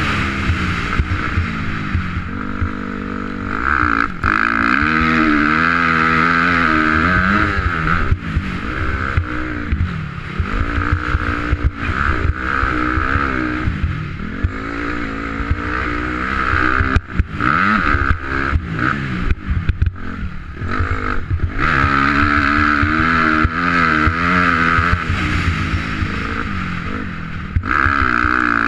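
2004 Honda CRF250R's single-cylinder four-stroke engine running hard round a motocross track, revving up and dropping off again and again as the rider opens and shuts the throttle.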